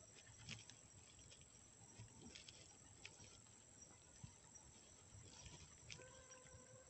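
Near silence: faint outdoor ambience with scattered light clicks and a thin, steady high-pitched whine. A faint pitched call starts about six seconds in.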